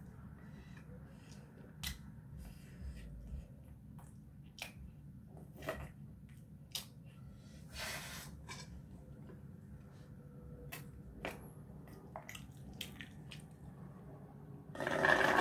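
Mouth sounds of eating a thick milkshake: scattered small clicks and smacks, a short slurp about eight seconds in, then near the end a loud buzzing slurp through a straw.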